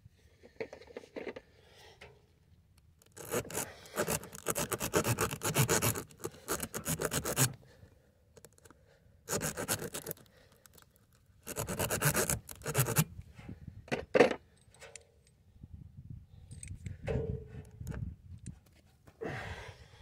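Steel T-handle reamer from a tire plug kit being worked in and out of a puncture in a trailer tire's tread, rasping against the rubber in several bursts of quick strokes with short pauses between, the longest about four seconds.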